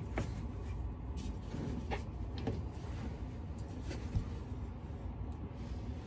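Faint handling noises: a few light knocks and scrapes as a large curved metal exhaust pipe is worked into place by hand, over a low steady hum.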